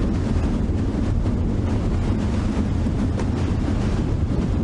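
Storm wind buffeting the microphone: a steady, rough low rumble with no distinct events.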